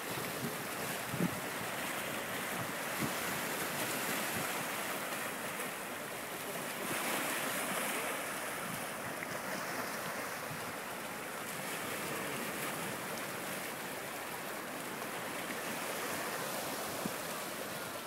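Small sea waves washing and splashing against shoreline rocks, a steady surf hiss, with some wind on the microphone. A single short knock about a second in.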